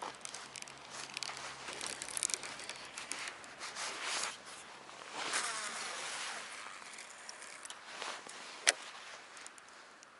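Handling noise from an angler and his fishing gear: rustling and scraping with scattered small clicks, and one sharp click near the end.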